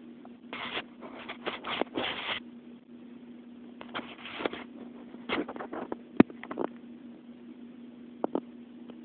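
A cat crunching potato chips: irregular clusters of short crunches, with one sharp click about six seconds in, over a low steady hum.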